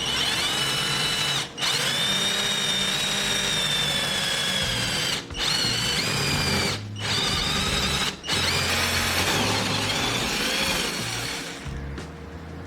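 Electric power tool running at high speed with a high whine that shifts slightly in pitch as it works, broken off abruptly four times.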